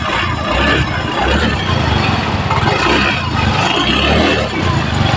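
Yamaha Mio i scooter's single-cylinder engine running on the stand after its CVT belt drive has been cleaned, its note rising twice.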